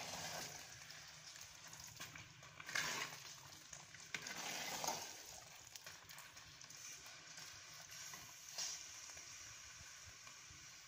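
Thick potato curry sizzling faintly in a clay pot as a metal spoon stirs it, with a few louder strokes of the spoon against the pot.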